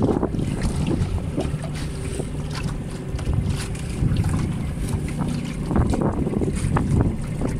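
Wind buffeting the microphone on a small boat at sea, a steady rough rumble, with water splashing and slapping against the hull.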